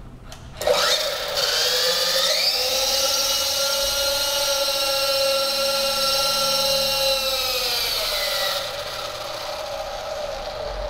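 Electric motor and rotor of a T-Series T-23 RC helicopter whining. It starts up abruptly, rises in pitch as it is throttled up to lift off, holds steady, then drops in pitch as it is throttled back about eight seconds in.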